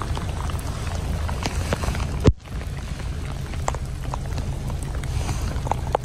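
Steady rain falling on a wet road, an even hiss with scattered drip ticks, over a low steady rumble. About two seconds in there is a sharp click and the sound drops out for a moment.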